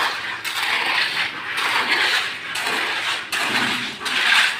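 A steel hand trowel scraping and pressing wet, gritty chips (terrazzo) concrete mix, in repeated uneven strokes.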